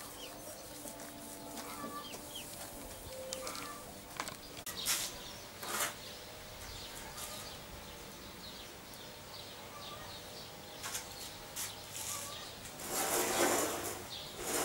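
Domestic hens clucking, with small birds chirping and a few sharp knocks. Near the end comes a louder scraping clatter as wooden boards are handled.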